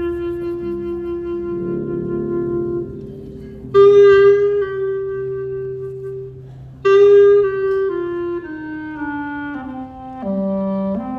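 Instrumental music with long held notes, two louder notes entering suddenly about four and seven seconds in, then a melody of shorter notes stepping up and down.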